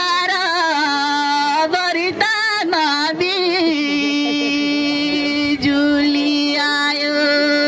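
A man singing a Nepali protest song into a microphone. The melodic line wavers and turns for a few seconds, then settles into one long held note.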